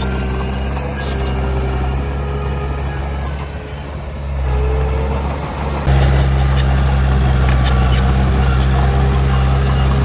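Heavy diesel engine of earthmoving machinery running steadily, dipping slightly in the middle, then stepping up suddenly louder about six seconds in, with light metallic clicks over it.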